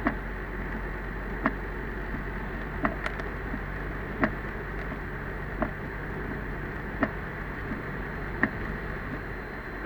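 Windshield wipers clicking at the end of each sweep, evenly about once every second and a half, over steady road noise and rumble of a car driving in heavy rain, heard inside the cabin.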